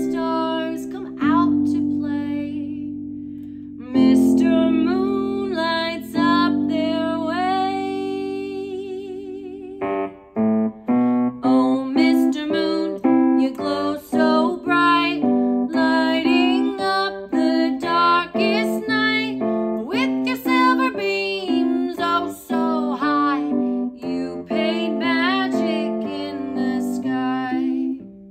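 A woman singing a children's song to her own piano accompaniment. Slow, held chords for about the first ten seconds, then a quicker, evenly paced melody.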